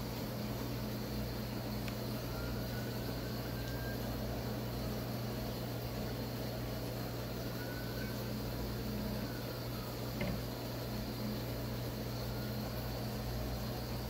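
Fishroom ambience: the steady low hum of aquarium air pumps and filters with water bubbling in the tanks. A small click about ten seconds in.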